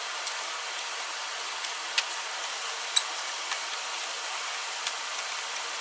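Steady hiss with a few faint, scattered clicks from a screwdriver working at the plastic air-intake duct and its clamps.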